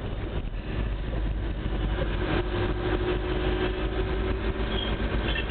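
Bus engine running and road noise heard from inside the cab while driving, a steady low rumble. A held tone comes in about two seconds in and lasts about two seconds.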